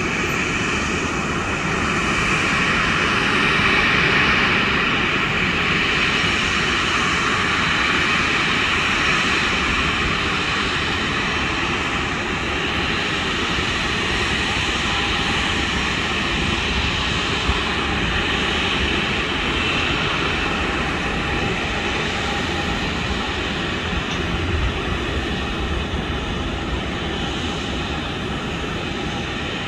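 Jet airliner engines running, a steady noise with a high whine that swells slightly about four seconds in.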